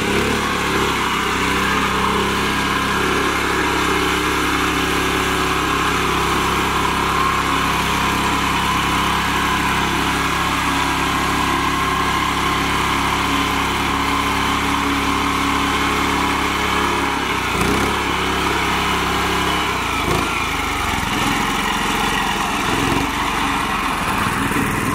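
Mini tractor's small engine running steadily as the tractor drives through mud, with a couple of brief knocks about two-thirds of the way through.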